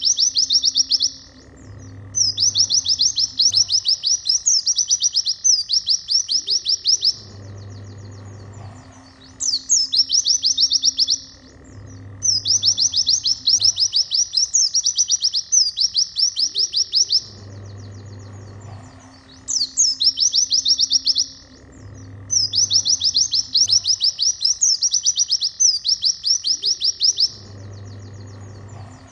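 White-eye song: high, rapid trilled phrases of about a second each, given in runs of several with short gaps, the same sequence recurring about every ten seconds as a looped song-training track. Background music with guitar and a low beat plays underneath.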